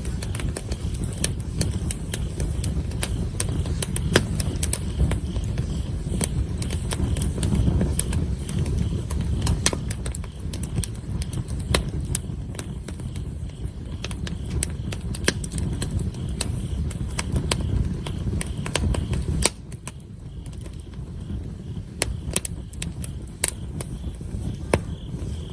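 Wood campfire burning, crackling with many irregular sharp pops and snaps over a low rumble that eases about two-thirds of the way in.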